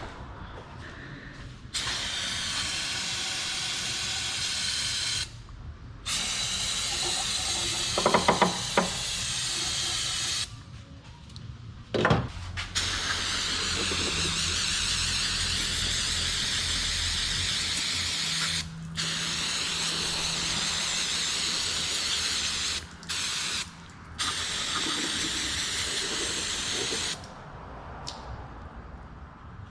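Aerosol brake cleaner spraying in about five long hissing bursts of a few seconds each, washing down an oil cooler and its gasket seat, with a few short knocks between bursts.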